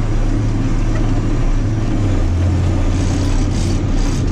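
Massey Ferguson 8210 tractor engine running steadily under way, its note dropping slightly about two seconds in.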